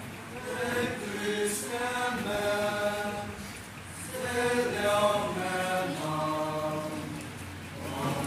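A group of young men and women singing together without instruments, in long held notes. One phrase ends about three and a half seconds in, a second follows after a brief breath, and a third starts near the end.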